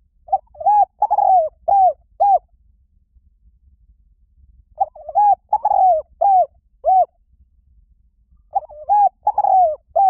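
Spotted dove cooing: three phrases of about five arched coo notes each, a few seconds apart, the last one running on past the end.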